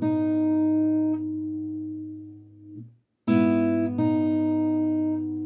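Acoustic guitar played fingerstyle: a low bass note and a higher note on the B string sounded together and left to ring, fading and stopped just before three seconds in. The same shape is then plucked twice more, about three and four seconds in.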